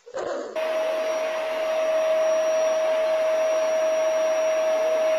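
Steady whir of an electric appliance motor blowing air, with a strong constant hum tone over a rushing hiss, starting abruptly about half a second in.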